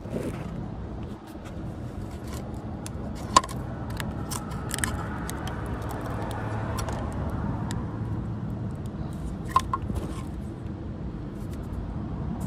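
Hands working the plastic wiring harness and connectors in a car's engine bay at the ignition coil pack: scraping and rustling, with a sharp click about three seconds in and a quick double click near ten seconds, over a steady low background rumble.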